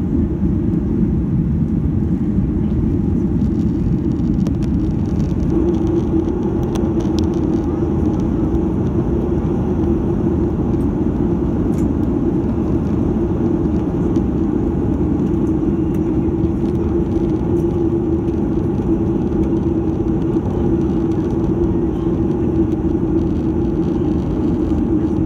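Steady cabin noise of a Boeing 737-800 in flight, heard from a window seat over the wing: the drone of its CFM56-7B turbofan engines and rushing air. A low hum grows stronger about five seconds in.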